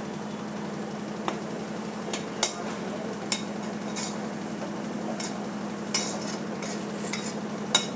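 A steel ladle stirs onions and turmeric frying in a kadhai of hot mustard oil, scraping the pan and clinking against it every second or so. Under the ladle there is a soft frying sizzle and a steady low hum.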